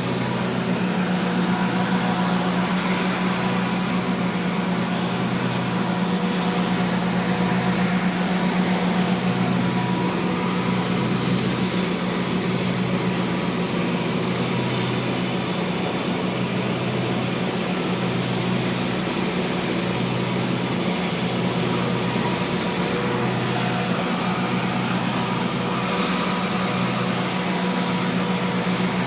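Arc welding of a root pass on a pipe-to-flange joint: a continuous steady hiss and crackle from the arc, over a steady low hum of machinery.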